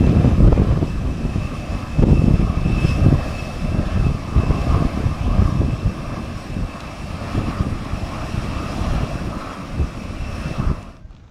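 Airliner engines running loud and close, a steady high whine over a low rumble that swells and eases in gusts. The sound cuts off abruptly near the end.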